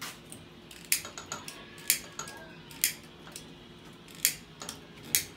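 Gas stove igniter clicking: five sharp snaps about a second apart, with fainter ticks between them, as a burner is tried that will not light.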